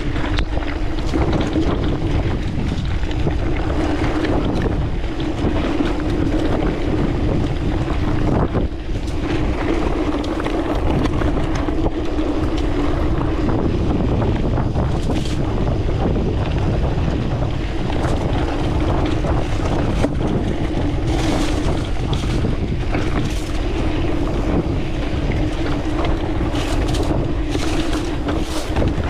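Wind buffeting the camera microphone on a Commencal Meta TR 29 mountain bike descending a dirt singletrack. Under the wind, the tyres rumble and the bike rattles over the rough ground, with scattered short knocks.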